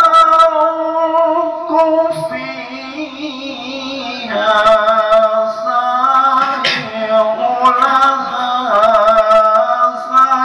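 A voice singing a slow melody in long held notes with small wavers in pitch, softer for a couple of seconds in the middle before swelling again.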